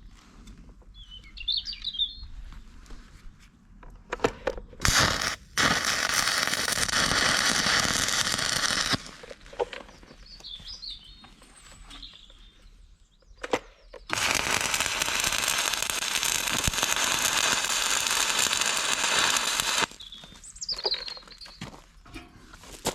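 Stick (arc) welder laying two welds, a few seconds and about six seconds long: a steady hiss that starts and stops abruptly, tacking steel plates onto angle iron. Birds chirp in the pauses between welds.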